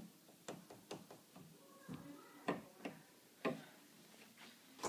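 Scattered light taps and clicks, irregular and a few a second, with quiet room tone between them.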